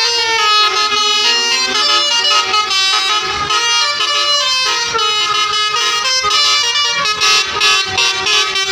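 Tour buses' 'telolet basuri' multi-tone musical air horns playing tunes. The horns step from note to note, with several tones sounding at once and overlapping the whole time.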